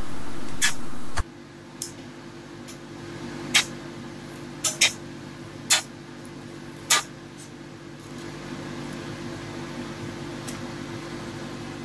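Fillet knife making a series of short, sharp clicks as it trims the rib bones from a surf perch fillet on a cutting board, over a steady low hum. The hum is louder for about the first second, then drops suddenly.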